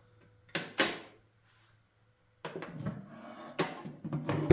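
Two sharp metal clicks as the suitcase-style latches of a wooden typewriter case snap open, then, after a pause of about a second and a half, irregular knocking and scraping of wood as the case's lid is handled and lifted.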